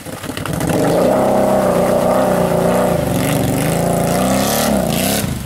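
Lifted ATV's engine revving up and down as it churns through a deep mud hole, the pitch rising and falling with the throttle.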